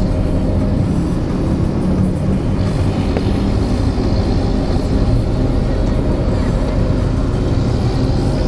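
Steady engine and road rumble of a car driving through city traffic, heard from inside the cabin.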